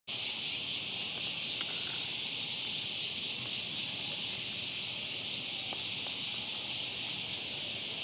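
Steady, high-pitched insect chorus, a dense unbroken hiss that holds one level throughout.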